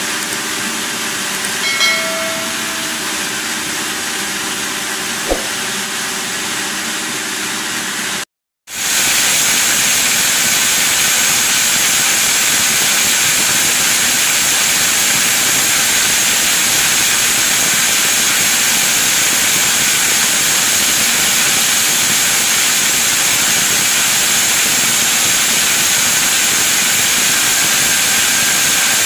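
Steady hissing noise of sawmill machinery running. It breaks off briefly about 8 seconds in and comes back louder and higher-pitched; a few faint clicks and a short tone sound in the first part.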